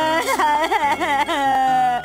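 Cartoon mammoth character crying: a wavering, sobbing voice that bends up and down, then draws out into one long wail near the end.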